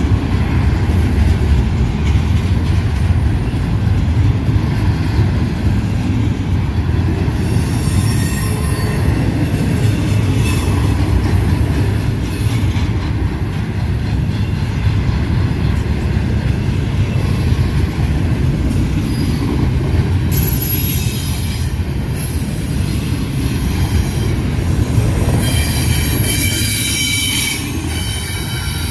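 Double-stack intermodal container train rolling past, its wheels giving a loud steady rumble on the rails. A high wheel squeal comes in at times, strongest about twenty seconds in and again near the end.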